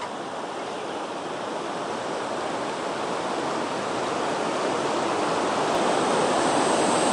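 Fast river rapid rushing over rocks: a steady rush of water that grows slowly louder.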